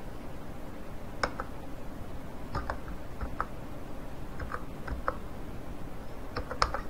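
Computer keyboard keys pressed one at a time while digits of a phone number are typed: about a dozen separate clicks at an uneven pace, in small clusters, over a steady low background noise.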